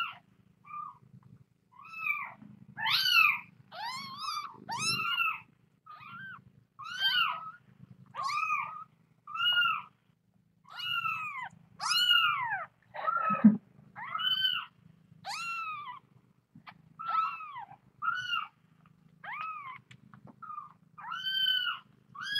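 A young kitten mewing over and over, short high-pitched arched cries about once a second. A single knock sounds about halfway through.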